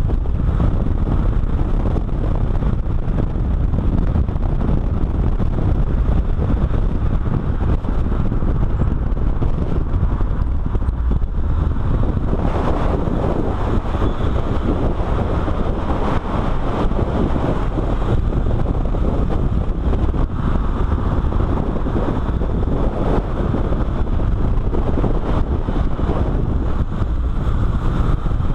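Car driving at speed on a race circuit, heard through a camera mounted on the outside of the body: heavy wind buffeting on the microphone over tyre and engine noise, steady throughout.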